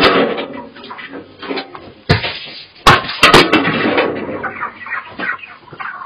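A flock of broiler chickens squawking and clucking, agitated, over a few sharp knocks and clatters about two, three and three and a half seconds in.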